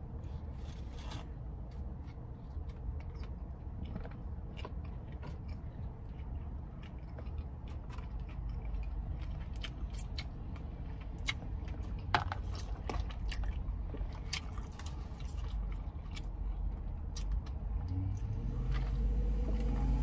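Close-up chewing of a mouthful of spicy chicken sandwich, with scattered wet mouth clicks and smacks over a low steady hum.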